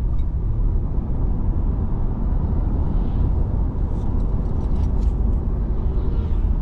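Steady low rumble of a moving vehicle, heard from inside.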